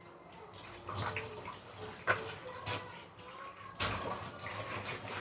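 Kitchen tap running into the sink while dishes are washed, the water rising about a second in. A few sharp clinks of steel utensils come through it.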